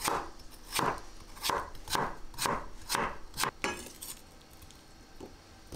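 Kitchen knife slicing through peeled nagaimo (Chinese yam) onto a wooden cutting board: about eight crisp knife strikes in the first three and a half seconds, then faint handling.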